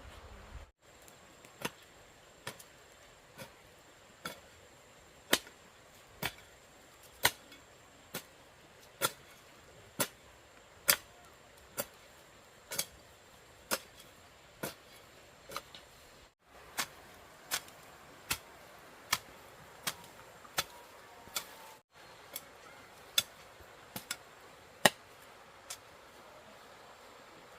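Repeated sharp knocks, one sharp strike at a time, at roughly one a second, coming a little quicker in the second half.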